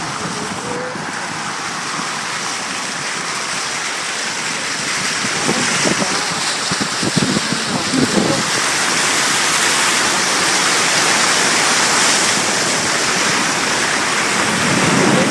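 Steady rushing of water, growing louder after about five seconds, with a few short knocks or splashes between about five and eight seconds in.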